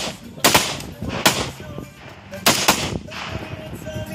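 AK-pattern rifle firing about five single shots at an uneven pace: two close together about half a second in, one a little after a second, and two more close together about two and a half seconds in. Each shot is a sharp crack with a short echo after it.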